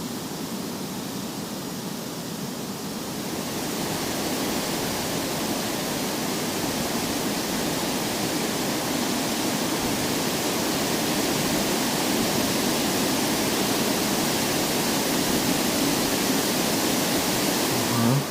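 Steady wind noise on the microphone, growing stronger about three seconds in.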